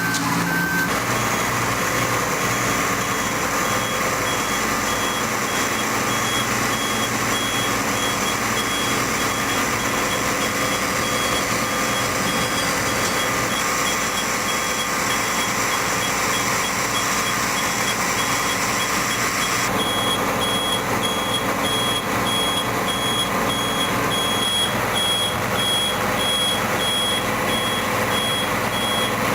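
Heavy construction machinery running steadily, with a back-up alarm beeping in a fast, even series over it; the beeping is clearer in the second half.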